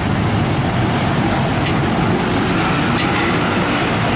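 Instant noodles simmering in a soupy sauce in a wok, stirred with a long-handled metal spatula, with a couple of light scrapes on the wok, over a steady loud rushing roar.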